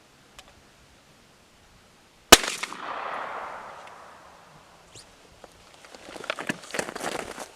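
A single blast from a break-action 12-gauge shotgun firing birdshot, followed by a rolling echo that fades over about two seconds. Near the end come irregular clicks and rustling.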